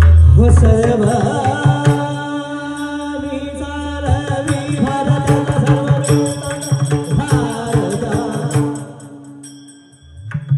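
Abhang devotional singing: a solo voice holding and bending long sung notes, with pakhawaj drum strokes joining about four seconds in. A deep low tone sounds at the start, and the music fades away near the end.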